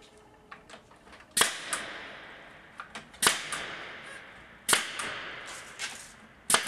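Staple gun firing four times, one shot every one and a half to two seconds, tacking a length of wall-fabric track in place. Each shot is a sharp crack with a short ringing tail, with a few faint handling clicks between.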